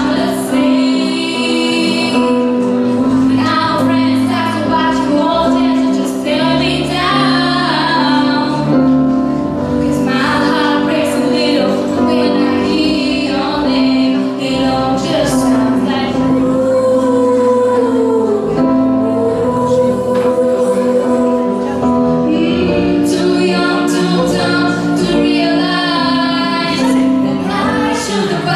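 A woman and a girl singing a song into microphones over instrumental accompaniment.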